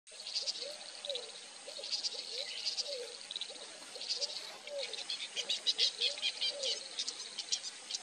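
Chorus of small wild animal calls: many quick high chirps overlapping, with a low call that rises and falls in pitch repeated every half second or so.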